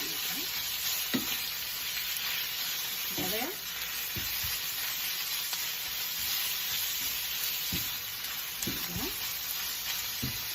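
Ground pork and beef sizzling steadily as they sauté in hot oil in a frying pan, with a spatula stirring and scraping through the meat in a few short strokes.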